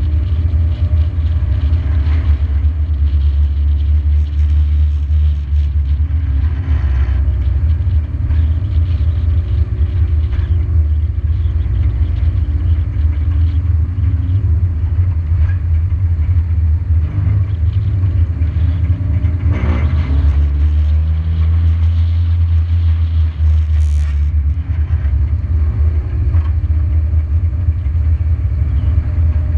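Race car engine heard through a hood-mounted camera, running loudly and steadily as the car laps an oval track, with the engine note dipping and rising again about two-thirds of the way in.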